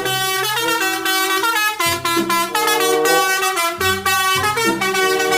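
Indonesian 'telolet' bus horn: a multi-tone air horn playing a quick tune of held notes that change pitch one after another without a break.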